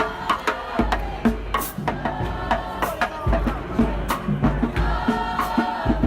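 Music with singing voices over a deep bass line and regular drum hits.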